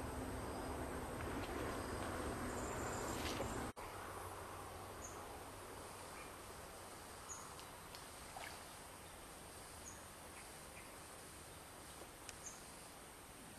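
Outdoor rural ambience: a steady hiss of background noise that cuts off sharply about four seconds in, giving way to quieter ambience with short high bird chirps every couple of seconds.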